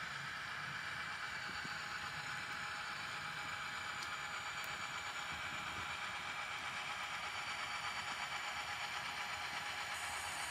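Pair of ScaleTrains Rio Grande SD40T-2 model diesel locomotives running along layout track: a steady mechanical running noise, with a faint click about four seconds in.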